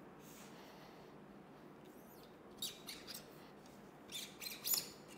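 Stainless steel sectional cleaning rod with a brass jag and patch being drawn through a rifle barrel. After a quiet start come a few short, high squeaky scrapes in the second half, the loudest near the end.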